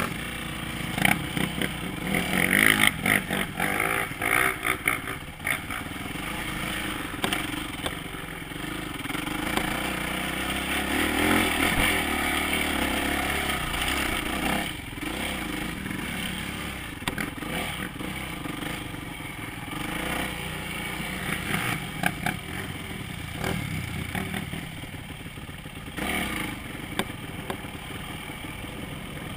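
Dirt bike engine running under load as it is ridden over a rough forest trail, the revs rising and falling, with clattering knocks as the bike jolts over bumps. The engine is loudest about ten to thirteen seconds in.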